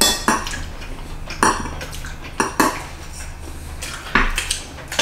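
Knives and forks clinking and scraping against dinner plates as two people cut and eat their food, in about half a dozen short, sharp clinks at irregular intervals.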